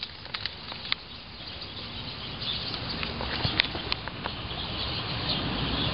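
Paper envelope rustling and crinkling as it is opened and a ticket drawn out, getting louder from about a second in, with a few short sharp ticks.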